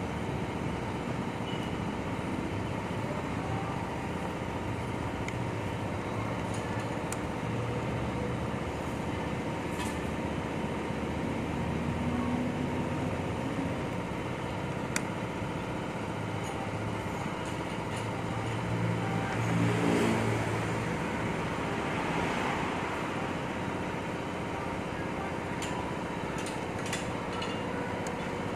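Steady background traffic noise. A passing vehicle rises and falls about two-thirds of the way through, and a few light metallic clicks come from a screwdriver working screws on a scooter's plastic airbox.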